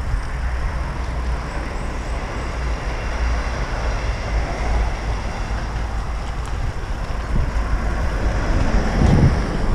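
Steady rumble of wind on the microphone and tyre noise from a mountain bike riding an off-road trail, swelling briefly near the end.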